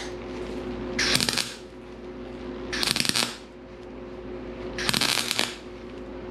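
MIG welder laying three short stitch welds on the thin sheet-metal seam of a 1965 Mustang's quarter panel and wheelhouse, each a crackling buzz of about half a second, about two seconds apart, with its wire speed just turned up to stop a weld running too hot. The result is 'just making a mess.' A steady fan hum from the fume extractor runs underneath.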